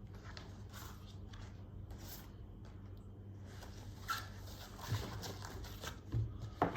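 Quiet room tone: a steady low hum with faint rustling and a few soft knocks.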